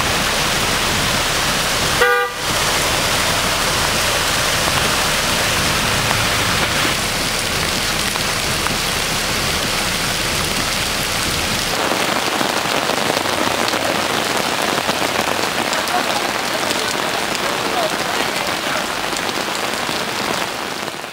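Heavy thunderstorm rain and floodwater rushing across a flooded street, a steady hiss. About two seconds in, a car horn toots briefly.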